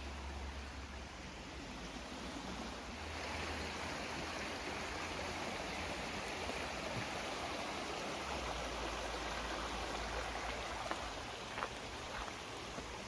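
Steady rushing of a flowing creek, growing fuller about three seconds in, with wind rumbling on the microphone at times and a few faint clicks near the end.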